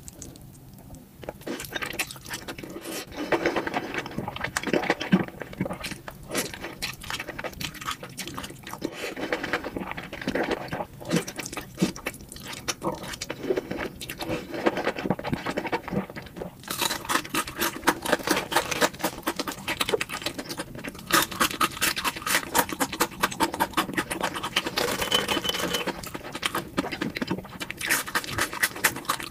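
Close-miked eating sounds: saucy instant noodles slurped off chopsticks and chewed, a dense run of small wet clicks and squelches. The clicking grows busier about halfway through.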